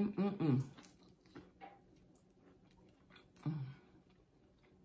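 Close-up mouth sounds of a person chewing chicken wing meat: faint, soft clicks and smacks. Two brief vocal sounds come without words, one at the start and one about three and a half seconds in.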